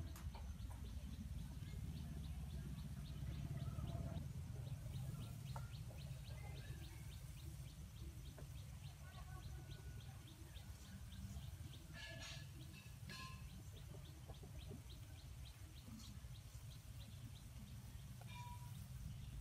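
Faint background sound: a steady low rumble under a regular high-pitched ticking, about three ticks a second, which fades out about halfway through, with a few short calls past the middle.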